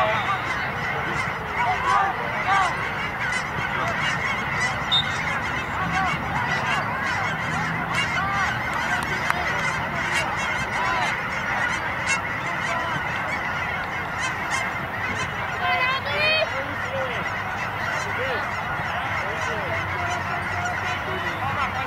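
A flock of geese honking continuously, many overlapping short calls at once.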